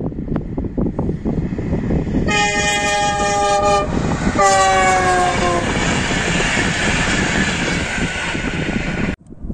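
Traxx electric locomotive at the head of an Interregio passenger train sounding its horn in two chords, the second falling in pitch, followed by the loud rush and rumble of the train going by. The sound cuts off suddenly near the end.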